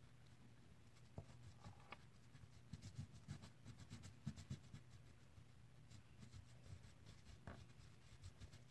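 Faint scratching of an orange crayon rubbed back and forth on paper in quick, uneven strokes while colouring in.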